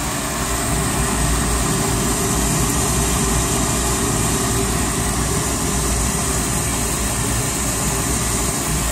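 1992 ICP 90% gas furnace running with its burners lit and a newly fitted inducer motor drawing: a steady rushing hum. With the restrictor plate in and the pressure switch pulled in, the furnace is firing normally.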